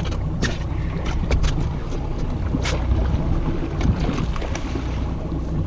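Wind buffeting the microphone over a steady low rumble from the boat on open water, with a few short sharp clicks and knocks scattered through.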